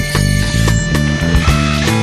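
Rock band playing: distorted guitars, bass and drums.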